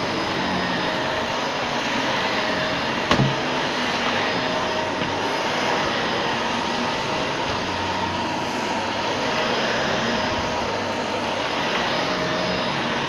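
Shark Rotator Professional Lift-Away upright vacuum cleaner running steadily as it is worked over the floor, with one short knock about three seconds in.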